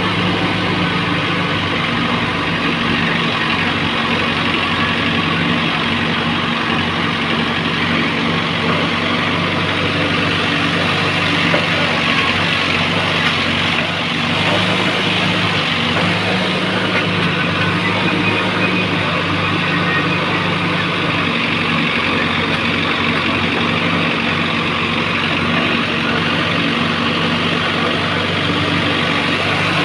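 Heavy diesel engine of earth-moving machinery running steadily at a constant speed.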